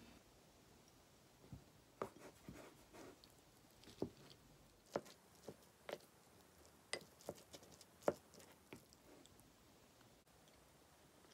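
A wooden spoon knocking and scraping against a ceramic bowl as rice is stirred and mixed: a dozen or so light, separate clicks, the loudest about eight seconds in.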